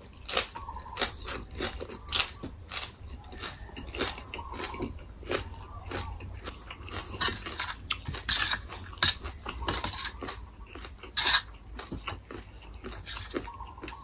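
Close-up chewing with many sharp, irregular crunches of crisp raw water spinach (morning glory) stems.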